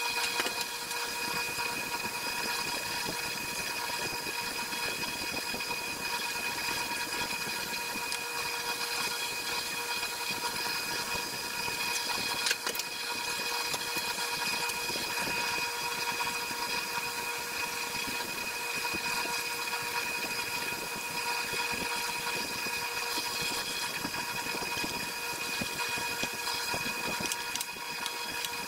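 Wood lathe running steadily: a constant hum of several even tones over a rough hiss, with a brief click about halfway through.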